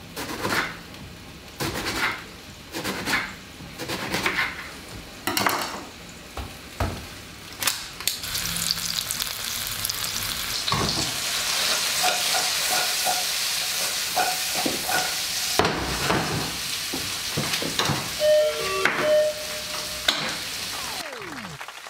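Cooking in a pan: a run of separate knocks about once a second, then from about eight seconds in a steady sizzle of food frying, with a few clicks over it.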